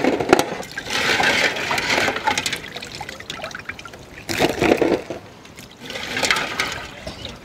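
Water splashing and dripping in three bursts as freshly rinsed crabs are lifted and set down on a metal tray, with a few sharp clicks of shell.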